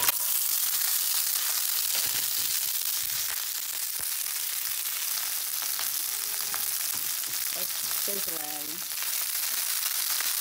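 Fresh green garbanzo beans hitting hot grapeseed oil in a cast iron skillet and sizzling. The sizzle starts suddenly as the beans go in, then holds steady.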